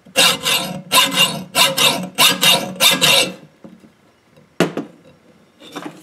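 Hacksaw blade rasping back and forth across the hardened steel shackle of a Kryptonite New York U-lock, about three quick strokes a second for some three seconds. The blade just slides around without biting in, a sign that the metal is hardened. One sharp knock follows about a second after the sawing stops.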